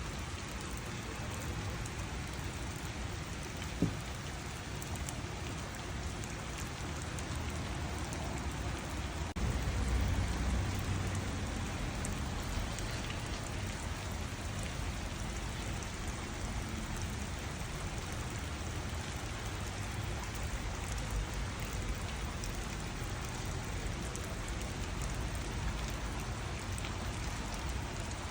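Steady rain falling on garden surfaces, an even patter throughout. A single sharp tick comes about four seconds in, and a brief low rumble about ten seconds in.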